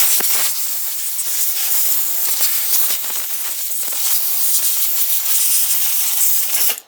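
Compressed air blowing over a car's power window switch to clear dust and dirt off it: a loud, steady hiss that starts suddenly and cuts off near the end.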